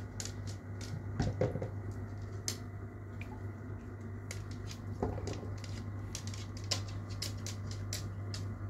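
Aquarium airline bubbling: irregular small pops and crackles of air bubbles over a steady low hum from the tank's equipment. A couple of soft knocks come about a second in and about five seconds in.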